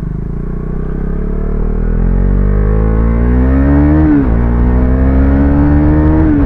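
A modified Husqvarna 250's single-cylinder engine accelerating hard, its pitch climbing through one gear, dropping at a shift about four seconds in, and climbing again to another shift near the end.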